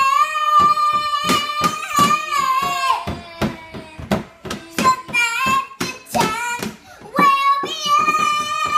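A child singing loudly in long held high notes, over a steady beat of sharp knocks. One note is held for about three seconds at the start, and another long note begins near the end.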